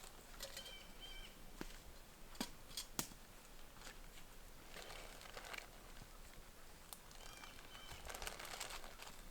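Faint rustling and a few scattered sharp clicks, with a short two-note pitched call heard twice, about a second in and again near the end.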